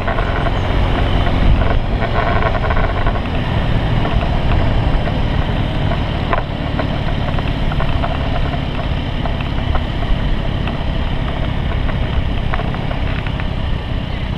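Motor scooter engine running steadily while riding along a road, mixed with heavy wind buffeting on the scooter-mounted camera microphone.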